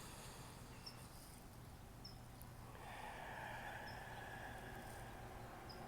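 Quiet outdoor ambience: faint short high chirps repeating about once a second, over a soft steady background noise that swells a little about halfway through.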